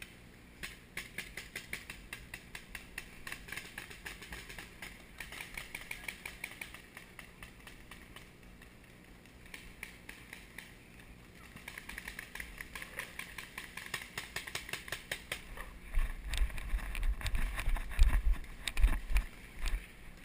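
Paintball markers firing in rapid strings of pops, with a lull partway through. Near the end, loud low thumps and rumble from knocks on the camera as the player moves.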